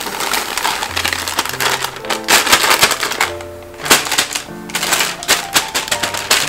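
Plastic cake-mix bag crinkling and rustling in quick crackly bursts while dry cake mix is shaken out of it into a plastic mixing bowl, over background music.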